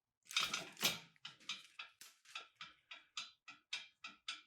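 A steady series of light, sharp clicks, about four a second, after two louder clicks at the start.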